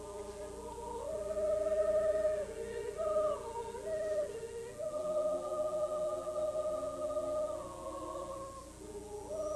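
Mixed choir singing in long held notes, several voice parts moving together.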